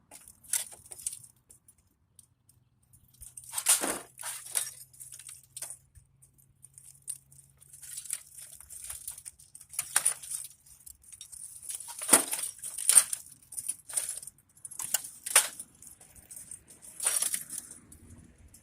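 Irregular clinks, clicks and rattles of metal and plastic parts being handled and pulled apart while scrapping a desktop computer, with a few sharper knocks spaced through.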